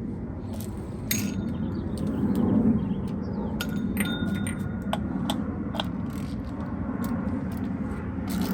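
Light clicks and clinks of an oil-filter housing and new filter cartridge being handled and fitted together by hand, with one brief metallic ring about four seconds in, over a steady low hum.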